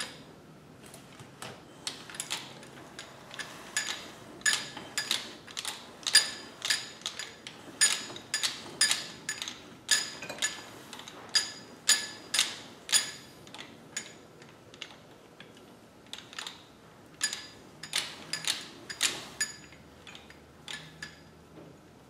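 Repeated sharp metallic clinks and taps, two or three a second and unevenly spaced, each ringing briefly at the same pitch. They come from steel transmission parts and hand tools being handled during an NV4500 teardown, and thin out partway through.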